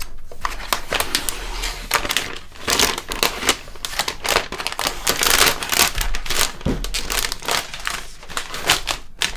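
Thin plastic protective film crinkling and crackling as it is peeled off a computer's back and bunched up by hand. A dense run of crackles, loudest through the middle.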